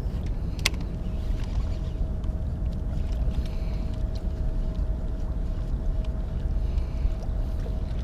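Steady low rumble of outdoor ambience with a faint, even hum running underneath, and one sharp click about a second in.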